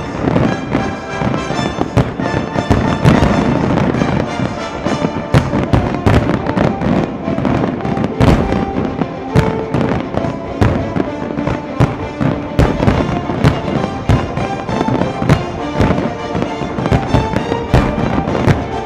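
Dense barrage of aerial firework shells and ground-fired comets, with many sharp bangs and crackles in quick succession over music.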